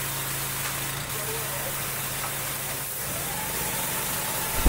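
Four petrol-engine pressure washers running together with a steady engine hum. About three seconds in a higher whine joins as the high-pressure jets spray, and there is a short knock near the end.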